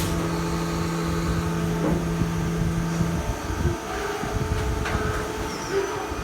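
Steady low machine hum that cuts off about three seconds in, leaving a low, uneven rumbling background.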